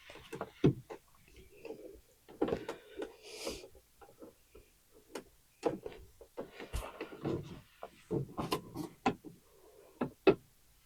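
Irregular small clicks, taps and brief scraping from handling a wall light switch, its screws and faceplate while it is being fitted and screwed into the wall box. A sharper, louder click comes at the very end.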